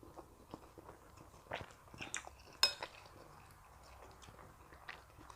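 Close-up eating sounds: a person chewing a mouthful of rice and stew, with scattered soft mouth clicks and one sharper click about two and a half seconds in.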